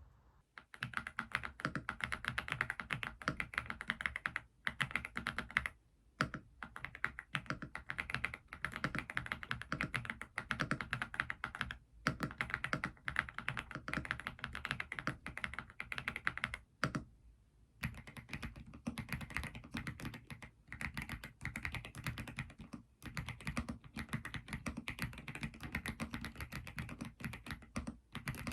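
Typing on an Aula mechanical keyboard: fast, continuous keystrokes with a deep 'dogak-dogak' sound. The typing stops for a few brief pauses, the longest about two-thirds of the way through.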